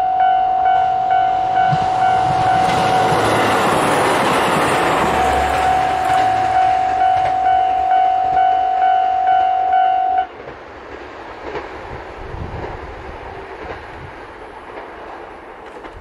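Level-crossing warning bell ringing in steady repeated dings, about one and a half to two a second, while a two-car JR Hokkaido H100 diesel-electric railcar passes; the noise of the train and its wheels on the rails swells and then fades. About ten seconds in the bell cuts off abruptly as the crossing clears, leaving the quieter sound of the departing train.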